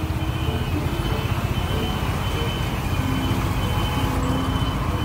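Water tanker truck's engine running steadily as it moves slowly along the street, with the hiss of water jetting from its front spray nozzle onto the road.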